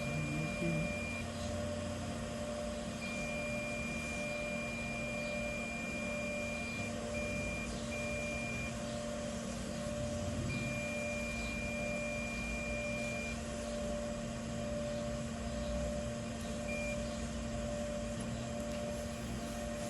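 Multimeter continuity beeper giving long, steady single-tone beeps, each held for one to four seconds and broken off several times, over a steady electrical hum. This is the continuous beep of probes across a shorted circuit on the motherboard.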